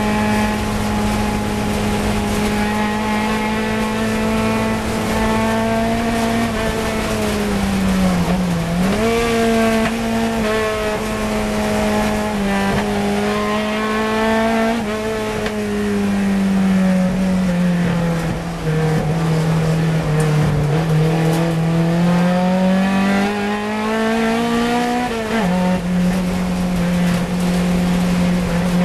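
Fiat 124 Coupe race car's four-cylinder engine heard from inside the cockpit, held high in the revs at racing speed. Its pitch sags into the slower corners about eight and twenty seconds in, and jumps sharply at gear changes about nine and twenty-five seconds in.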